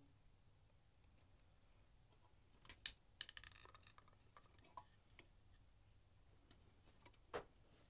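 Small clicks, knocks and a short rattling scrape of parts being handled as an electric hot water pot is reassembled, loudest around three seconds in, with a few scattered clicks after.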